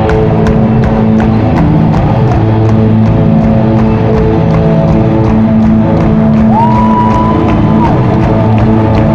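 Loud live rock band playing, with sustained chords and a steady drum beat, and the crowd cheering faintly underneath. About six and a half seconds in, a single high note slides up and is held for about a second and a half.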